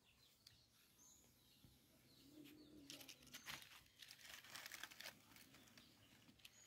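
Faint crackling and rustling of dry banana leaves and kindling as a small open wood fire is being lit, in irregular clusters of crackles.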